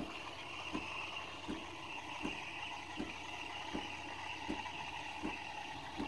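Saeco Xsmall superautomatic espresso machine steaming milk through its Panarello wand: a steady hiss and gurgle in the pitcher, with a soft thump about every three quarters of a second from the machine's thermoblock steam system.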